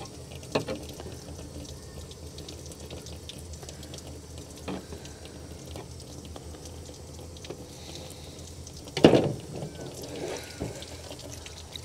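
Tap water running into a sink as a squid is rinsed and cleaned by hand, with a few faint knocks and one short, louder sound about nine seconds in.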